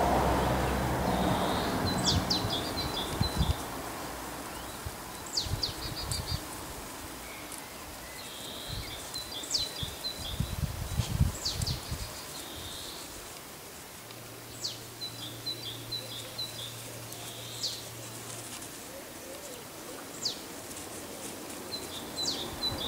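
A small songbird singing, repeating a short high phrase every few seconds: a sharp high note followed by a quick run of short notes. Occasional low thuds underneath.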